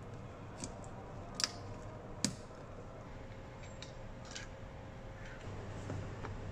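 A handful of light clicks and taps from hands working plastic parts and clips inside a car door around the window regulator, the two sharpest about one and a half and two and a quarter seconds in, over a low steady hum.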